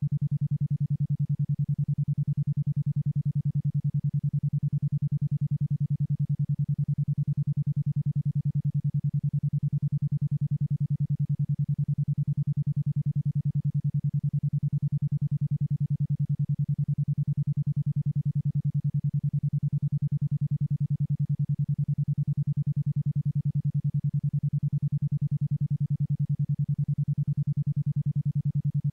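A 10.2 Hz isochronic tone: a single low, steady electronic tone switched on and off in rapid, even pulses about ten times a second.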